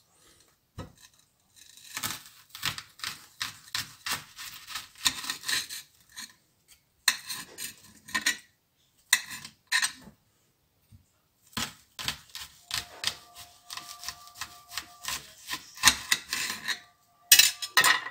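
Kitchen knife slicing through a peeled raw onion on a glass cutting board: crisp crunching cuts with the blade clicking on the glass, in irregular runs of strokes with short pauses between them.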